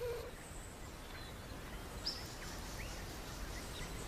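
Faint outdoor ambience: a steady low rumble with a few scattered, short bird chirps.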